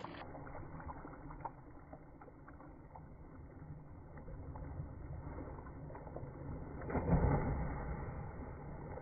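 Water splashing and churning from a swimmer's freestyle strokes in a pool, with a burst of heavier splashing about seven seconds in.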